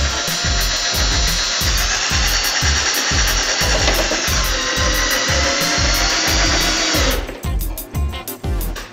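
Cordless drill driving a screw through a return-air grille into the wall. It runs steadily and cuts off about seven seconds in. Background music with a steady beat plays throughout.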